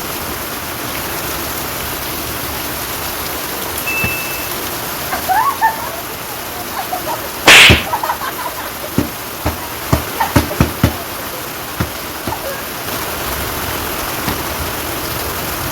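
Steady rain-like hiss, broken about halfway through by one loud, sudden sharp sound, followed by a scatter of brief knocks and clicks.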